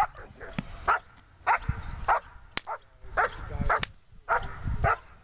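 German Shepherd barking repeatedly at a protection-training helper, about eight short barks mostly in pairs, the barking of a dog in protection work held back on a leash. Two sharp clicks come in between, a little past halfway.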